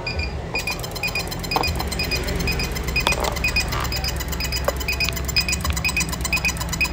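Short electronic beeps repeating several times a second, with a fast regular ticking joining in about half a second in, over a steady low hum.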